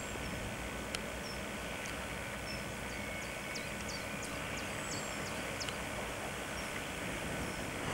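Faint outdoor ambience: a steady low wind rumble with scattered short, high bird chirps.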